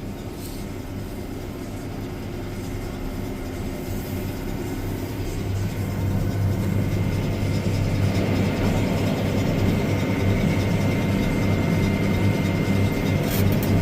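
Farm tractor engine running steadily, growing louder over several seconds and then holding, with a thin high whine joining in partway through.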